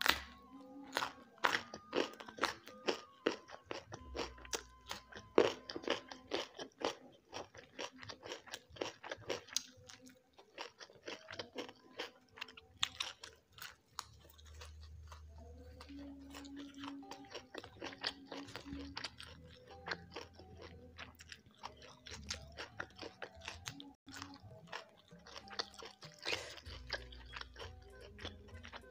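Close-miked chewing with many crisp crunches as raw vegetables and rice are eaten. The crunches come thick and fast for the first ten seconds or so, then thin out, with another crunchy cluster near the end.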